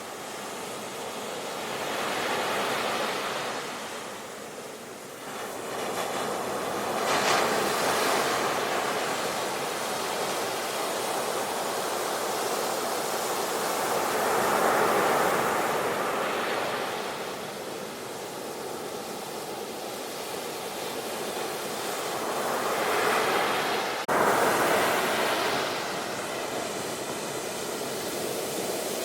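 Sea waves breaking and washing onto the shore, swelling and falling away every few seconds, with one sharp click about 24 seconds in.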